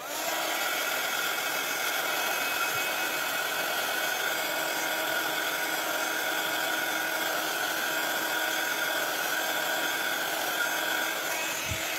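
A small electric motor-driven craft tool running steadily; it is switched on at the start and cuts off after about twelve seconds.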